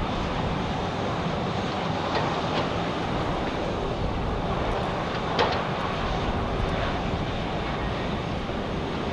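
Boeing 737-800 freighter's CFM56-7B turbofans running at taxi idle, a steady rushing hum. A few brief clicks sound over it, the sharpest about halfway through.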